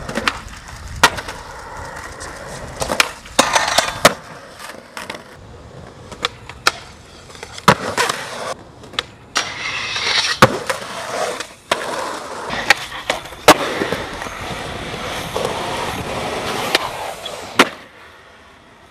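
Skateboard wheels rolling on concrete, broken by sharp clacks of tail pops and board landings. About ten seconds in, a board scrapes as it slides down a metal handrail.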